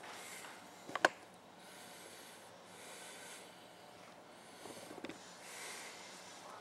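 Quiet room with a person's breathing close to the microphone, a sharp click about a second in, and a few soft handling clicks near the end as a cord lanyard is taken in hand.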